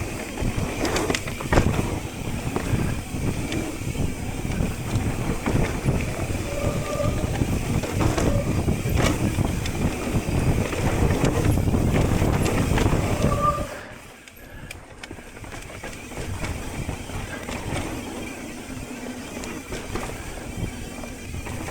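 Mountain bike rolling fast down a dirt trail, its tyres rumbling and the bike rattling and knocking over rough ground. The disc brakes honk briefly twice. About fourteen seconds in, the rumble drops to a quieter, smoother roll.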